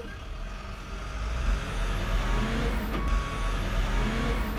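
Tow truck outside, its engine running and getting louder from about a second in, with a reversing alarm beep sounding about three seconds in.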